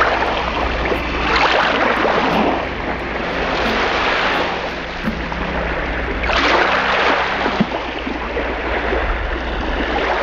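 Water splashing and sloshing in a polar bear pool as polar bears swim, swelling in three surges over a steady wash of noise.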